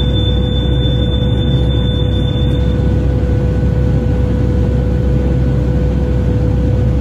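Steady low machinery hum with a steady mid-pitched whine over it; a thin high whine stops about two and a half seconds in.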